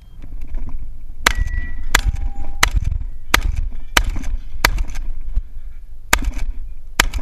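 Benelli Supernova pump-action shotgun fired in a fast string at steel targets, a shot about every two-thirds of a second, with a short pause near the end. The steel rings briefly after the first two hits.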